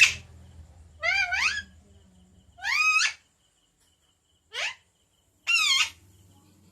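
Pet rose-ringed parakeet (Indian house parrot) giving four short, high-pitched calls with a bending pitch, spaced about a second apart.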